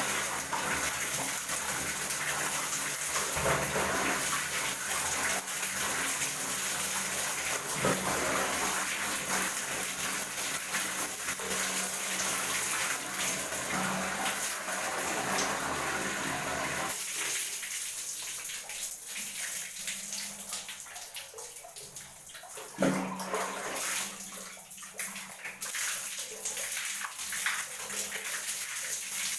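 Water running and splashing in a small tiled bathroom as long hair is washed: a steady rush of water that thins out a little past halfway into scattered drips and splashes, with one sharp splash. Near the end water is poured from a plastic mug over the head.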